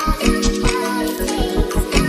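Background music with a steady, fast bass beat and sustained melody notes.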